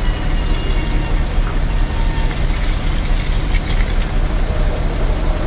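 Kobelco hydraulic excavator's diesel engine running steadily as the bucket digs, with a scattered clatter of stones and soil from about two seconds in.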